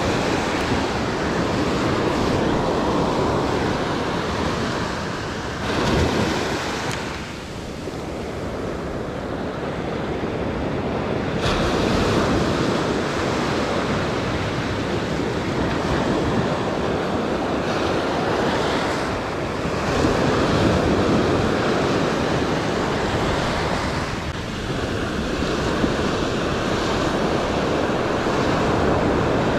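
Ocean surf breaking and washing up a sandy beach close by, a steady rushing wash that swells and eases in loudness as each wave comes in.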